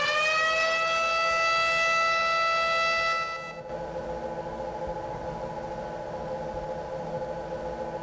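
Simulated industrial alarm siren sounding one steady, high whistle-like tone, then cutting off suddenly about three and a half seconds in: the start-up warning that a 4-second PLC timer holds on before the conveyor starts. After it, a quieter steady hum of the simulated roller conveyor running.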